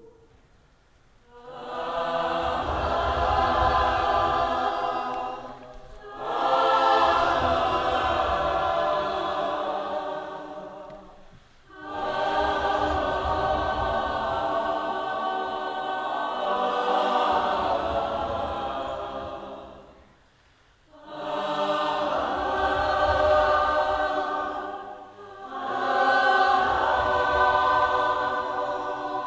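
A choir singing sustained, held chords in long phrases that swell and fade away, with short pauses between them, about five phrases in all.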